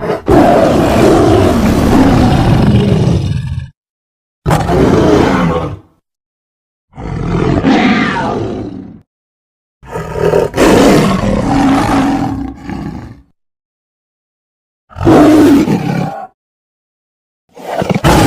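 A series of six separate roars and growls from a tiger-like beast character, each one to three and a half seconds long and cut off by dead silence before the next. The first is the longest.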